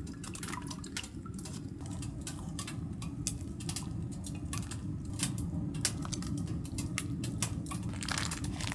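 Food packaging and cookware being handled while cooking: many quick, sharp clicks and crinkles over a steady low rumble.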